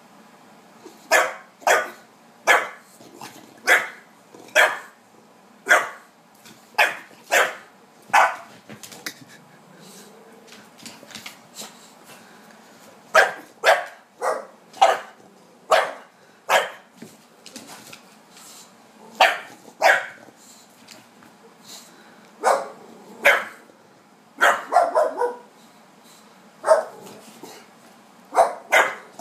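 English bulldog barking over and over in short, sharp single barks, mostly about a second apart, in runs broken by pauses of a couple of seconds.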